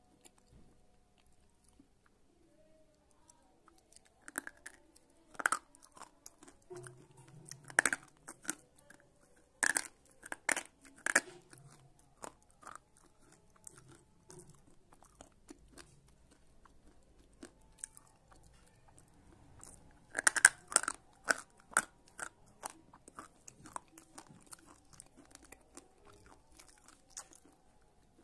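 Slate pencil being bitten and chewed: sharp, loud crunches in two clusters, starting about four seconds in and again about twenty seconds in, with lighter crunching between that thins out near the end.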